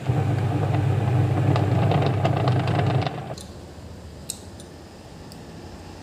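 Sharp top-loading washing machine running: a steady motor-and-gearbox hum with a rattle of clicks as the pulsator turns in the tub, stopping suddenly about three seconds in, followed by a few light clicks. The gearbox is turning the pulsator where the tub should spin, the fault that keeps the machine from spin-drying.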